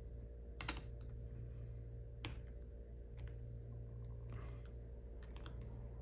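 Scattered light clicks and taps of a screwdriver and a plastic twist-lock connector being worked and handled, the loudest about two-thirds of a second in, over a steady low hum.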